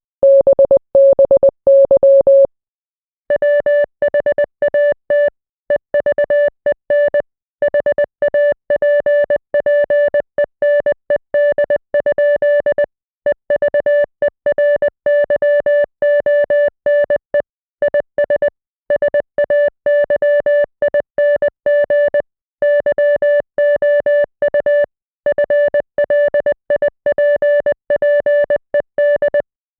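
International Morse code played as a single steady beep keyed on and off in rapid short and long pulses (dits and dahs), with short silences between letters and words. It pauses briefly about two and a half seconds in, then carries on.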